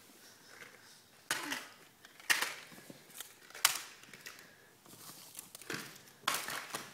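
Wrapped fun-size Halloween candy bars being handled and dropped into a bowl: a few short, separate crinkles and clacks of plastic wrappers and small boxes.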